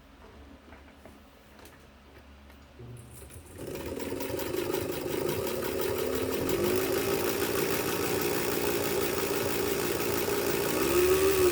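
A Free Westinghouse 3/4-size long-shuttle sewing machine, driven by its electric motor, starts sewing about three and a half seconds in and runs steadily, its speed rising and falling a little twice. It runs slower than it could because the bobbin winder has been left engaged.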